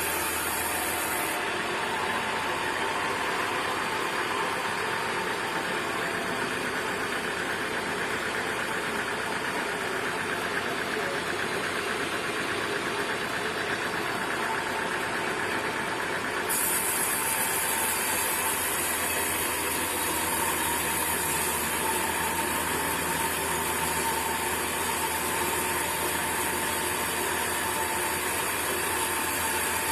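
Sawmill machinery running steadily: a continuous mechanical drone with a few steady tones in it. The sound changes abruptly about a second and a half in and again about halfway through.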